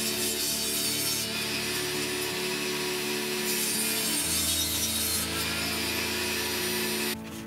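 Table saw running and ripping a thin strip off a wooden board, the blade cutting steadily through the wood. The sound cuts off abruptly near the end.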